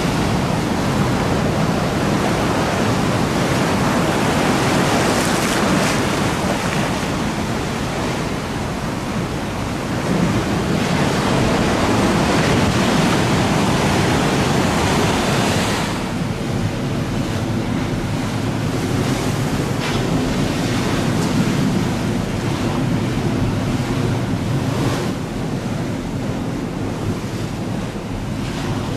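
Strong wind buffeting the microphone over choppy river water, with waves washing steadily; the gusts ease somewhat about halfway through.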